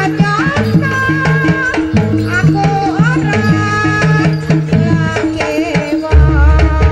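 Javanese gamelan music for a buto dance: a female singer's voice over the microphone with hand drums and a repeating pattern of low pitched metal tones. About six seconds in a deep low boom comes in and is the loudest thing.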